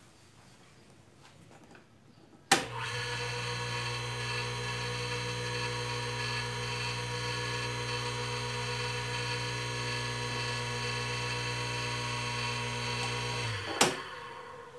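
Industrial sewing machine motor switched on with a click about two and a half seconds in, running with a steady even hum, then switched off with a click near the end and winding down. It runs quietly on new 6203 bearings, without the squeal of worn bearings.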